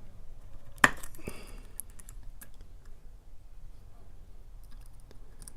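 Small metal clicks and taps from tools working at the parts of a picked-open challenge lock as it is taken apart, with one sharp click a little under a second in and a lighter one soon after.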